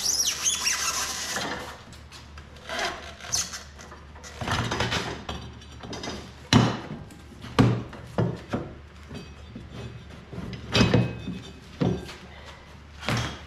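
Rubber snowmobile drive belt scraping and rubbing as it is worked off the clutch sheaves by hand, with about five sharp knocks in the second half.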